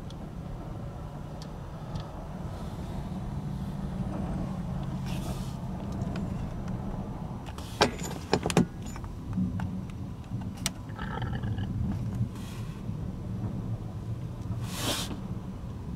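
Vehicle engine idling with a steady low hum, with a cluster of sharp clicks and knocks about halfway through and a brief hiss near the end.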